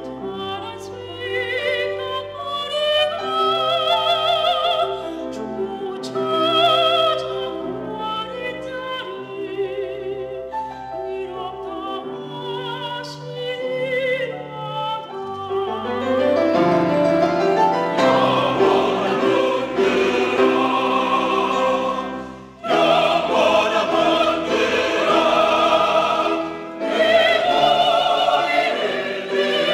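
Mixed church choir singing an anthem with vibrato, softer at first and then swelling into a loud, full-voiced passage about halfway through, with a brief break about two-thirds of the way in.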